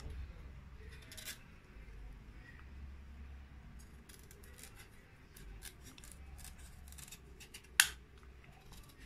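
A kitchen knife paring the tough rind off a squash: faint scraping cuts with scattered crisp clicks as the blade bites through the hard skin. There is a sharper click about a second in and a louder one near the end.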